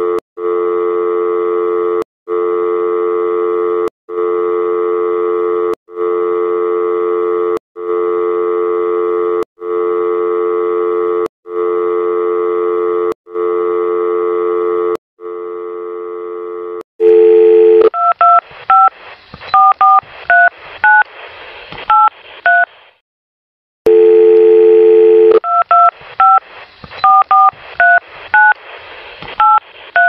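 Homemade mock emergency alert built from telephone sounds: a low two-note tone pulses on and off about every two seconds, nine times. Then come touch-tone keypad beeps over a hiss, a brief silence, another burst of the low tone, and more keypad beeps.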